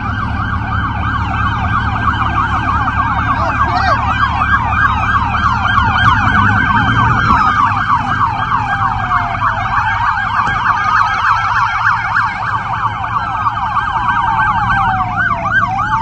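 Several police car sirens sounding at once, mostly fast yelp patterns overlapping, with a slower wail sweeping down twice through them. A low rumble underneath fades out about halfway through.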